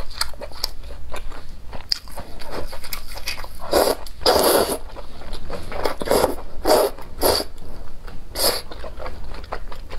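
Close-miked eating of noodles in broth: small wet mouth clicks and chewing, then a run of about six short, loud slurps from about four seconds in as noodles are sucked up.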